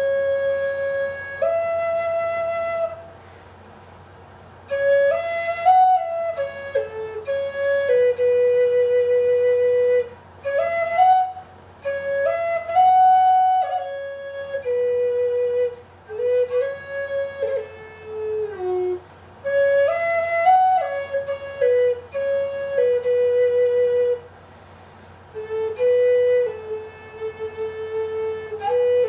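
Flute playing a slow melody in phrases, with short pauses between phrases, about three, ten and twenty-four seconds in.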